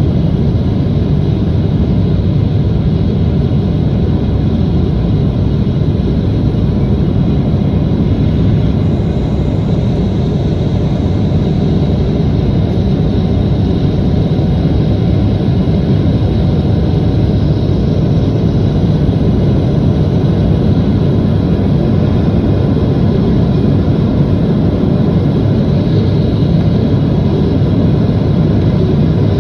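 Boeing 777-200ER jet engines and airflow heard from inside the passenger cabin as a steady, even low rumble with faint steady tones above it.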